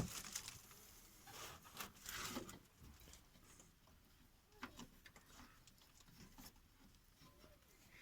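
Mostly near silence, with a few faint scattered clicks and rustles of a hand thread tap being unscrewed from a freshly cut thread in the car's underbody.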